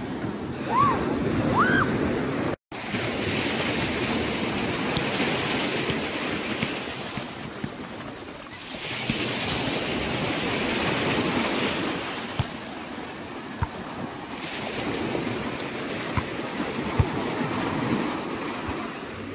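Small waves washing onto a sandy beach, the surf swelling and fading every few seconds, with wind on the phone microphone. The sound cuts out for an instant about two and a half seconds in.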